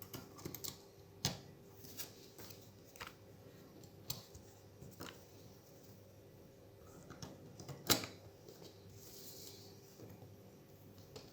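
Small, sharp clicks and taps of phone parts and tools being handled as a smartphone's logic board is fitted into its frame, scattered irregularly, with the loudest click about eight seconds in.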